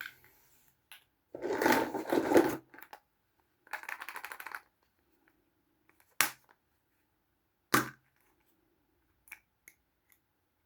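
Small plastic toys and their packaging being handled up close. A loud crinkling crackle comes first, then a quick rattling run of ticks, then two sharp clicks, and a few light taps near the end.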